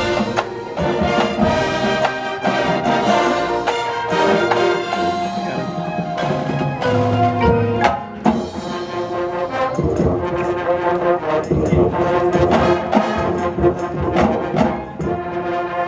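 High school marching band playing, the brass section carrying sustained chords and melody over sharp percussion hits.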